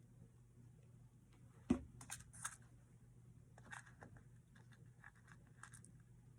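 Faint, scattered light clicks and ticks of tweezers picking up and placing small sequins on a paper card, with one sharper knock just under two seconds in. A steady low hum underneath.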